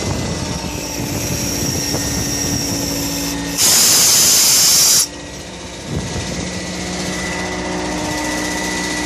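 Generator set's engine running steadily, with a loud hiss lasting about a second and a half near the middle. After the hiss the running sound drops briefly, then picks up again about a second later.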